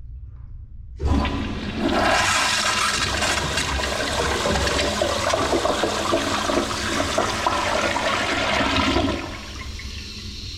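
Toilet flushing: a sudden rush of water about a second in, swirling loudly for about eight seconds, then dropping to a quieter steady hiss of running water near the end.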